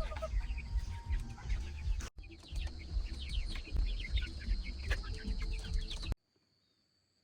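Chickens clucking and chirping over a low outdoor rumble, with many short high calls. The sound breaks off for an instant about two seconds in. About six seconds in it cuts to near silence, leaving only a faint steady high whine.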